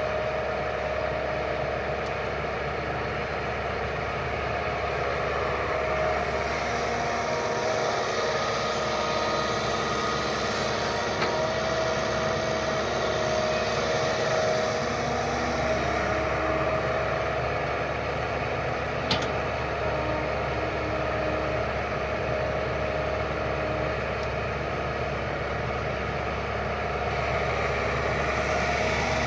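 Kobelco SK120 Mark 3 excavator's diesel engine running steadily while it digs and loads soil, with one brief sharp click about two-thirds through.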